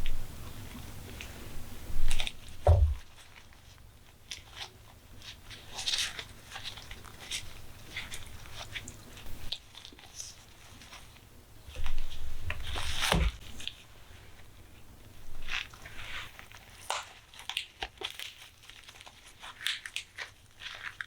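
Crisp crunching and tearing of sandwich ingredients being handled in the kitchen, scattered crackles with two heavier thuds, about two seconds in and again near the middle.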